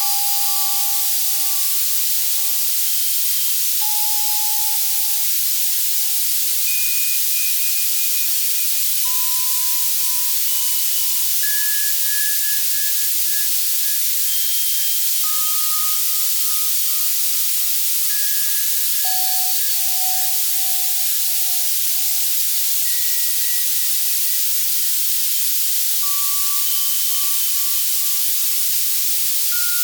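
Steady synthesized white-noise hiss from an Access Virus C synthesizer, brightest in the highs. Over it come sparse, soft bell-like notes at scattered pitches, each ringing for a second or two and fading.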